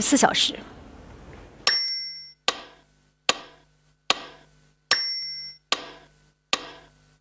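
Clock-ticking sound effect: a sharp tick about every 0.8 s, with a bell-like ding on every fourth tick, over a faint low hum.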